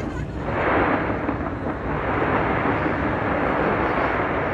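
Fireworks from the Taipei 101 skyscraper going off in a dense, continuous barrage: a steady rushing noise over a low rumble, swelling about half a second in.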